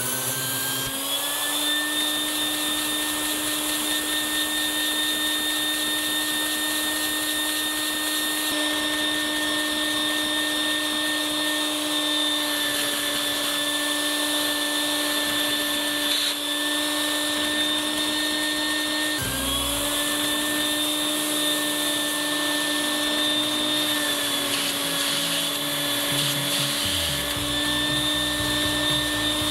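Vacuum cleaner motor spinning up and then running with a steady whine as it draws air through a LEGO vacuum engine under test. About two-thirds of the way through it drops off briefly and spins back up.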